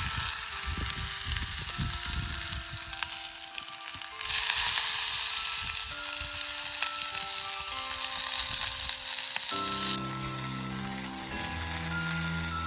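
Food sizzling as it fries in a cooker pan over a campfire, a steady hiss, under background music of plinking mallet-like notes that move to lower, fuller notes near the end.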